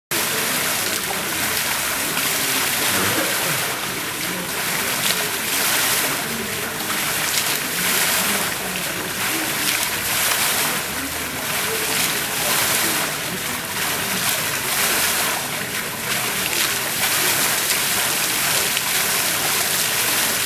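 Ground-level fountain jets splashing onto wet paving: a steady spattering hiss of falling water that swells and eases every second or two.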